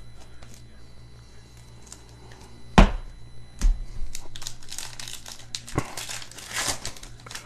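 A 2023 Panini Optic Football trading-card pack wrapper being torn open and crinkled. There is a sharp knock about three seconds in, and a lighter one just after it. Dense crinkling then runs through the second half.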